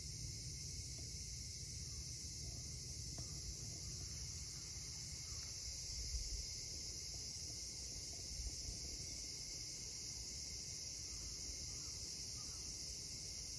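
Steady high-pitched chorus of insects, unbroken throughout, with a couple of soft low bumps about six and eight and a half seconds in.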